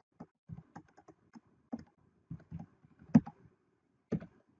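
Typing on a computer keyboard: about a dozen separate keystrokes at an uneven pace, with one louder click about three seconds in.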